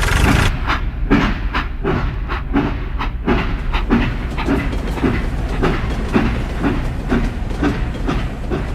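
Train running on rails, with an even clickety-clack of wheels over rail joints, about two to three knocks a second, over a steady low rumble.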